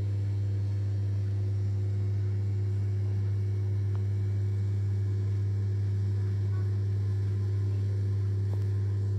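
A steady low hum with several fainter, evenly spaced higher tones above it, even in level throughout.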